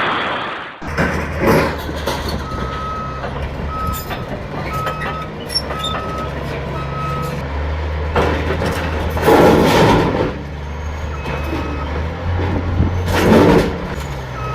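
A heavy vehicle's engine runs low and steady while a reversing alarm beeps over and over, a little more than once a second. Two loud bursts of rushing noise stand out in the second half.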